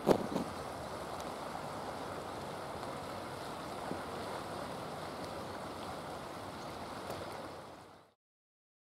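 River water rushing steadily over a weir-like run of bridge posts, with a brief thump just after the start; the sound fades out near the end.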